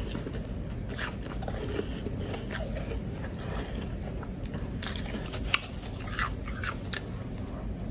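Powdery blender-crushed ice being bitten and chewed close up: a run of irregular crisp crunches, with one sharper crunch about five and a half seconds in.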